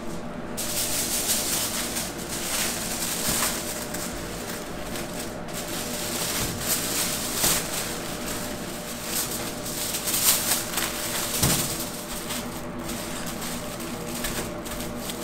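T-bone steak sizzling in a hot pan, a dense hiss that sets in about half a second in, with a few knocks of utensils.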